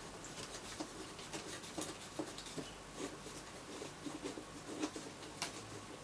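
Screws being undone on an old elevator button panel: faint, irregular scraping and small clicks, with one sharper click near the end.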